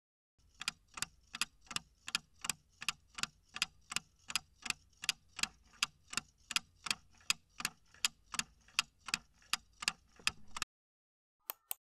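Ticking clock sound effect timing a quiz countdown: even ticks at about two and a half a second, which stop abruptly as the countdown ends, followed by two short clicks.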